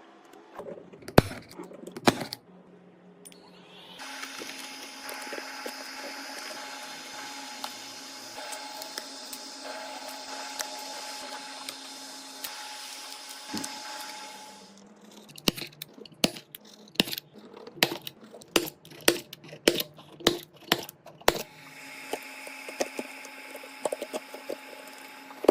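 Back-glass removal on a cracked iPhone Xs Max: a machine runs steadily with a buzz and a high whine for about ten seconds. It stops for a run of a dozen or so sharp cracks and taps, then starts again near the end.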